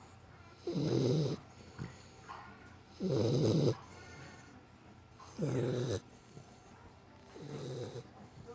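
Pit bull puppy snoring in her sleep: four snores, one about every two and a half seconds, the last one softer.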